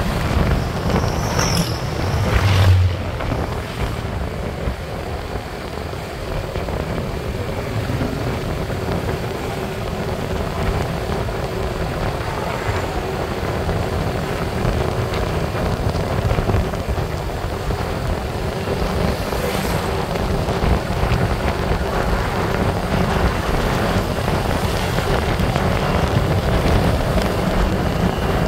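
Motorbike riding along a paved road: its engine running steadily under wind and road noise on the bike-mounted microphone, with a brief low thump about two and a half seconds in.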